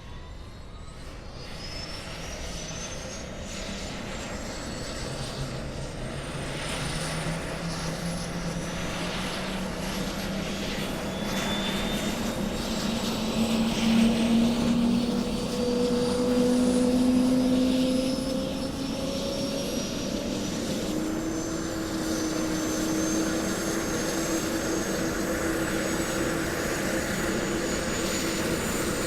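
Helicopter engine starting up and spooling: a high whine climbs steadily in pitch while a lower engine tone rises with it, the whole sound growing louder as the engine winds up.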